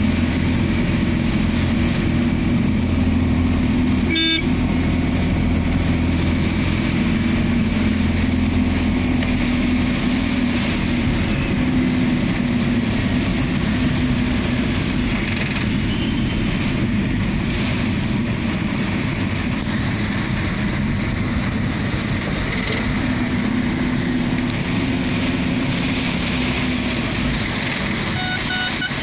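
Heavy rain on a moving vehicle, heard from inside: a steady hiss of rain and spray over the low, steady hum of the engine and road. A brief sharp sound about four seconds in, and a vehicle horn starts sounding in short pulses near the end.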